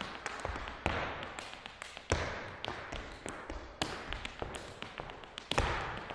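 Irish dance hard shoes beating on a hard floor: rapid clicks of toe and heel, with four heavier stamps that each ring on briefly in the room.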